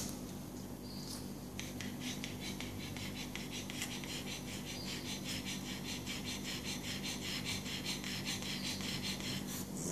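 Pug panting rapidly in an even, fast rhythm, starting about one and a half seconds in, over a steady low hum.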